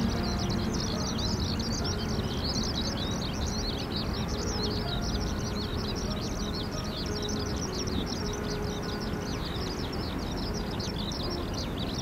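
Many small birds chirping at once: a dense stream of short, high, overlapping chirps that never pauses, over a steady low rumble.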